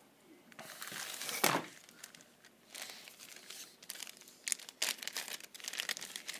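Packaging rustling and crinkling in the hands in irregular bursts, the loudest about a second and a half in, as boxed 3D-printed miniature pieces are unpacked and handled.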